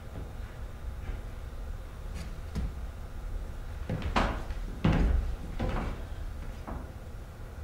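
A few irregular footsteps and knocks on a stage floor as a performer crosses the stage, loudest about halfway through, over a steady low hum.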